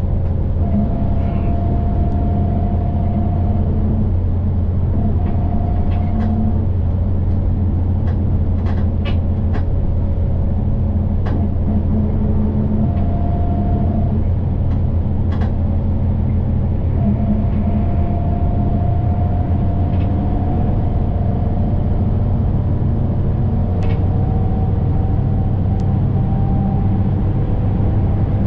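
Steady low drone of a city bus's engine and tyres, heard from inside the cabin while it drives through a road tunnel. A faint whine comes and goes over it, with a few light rattles scattered through.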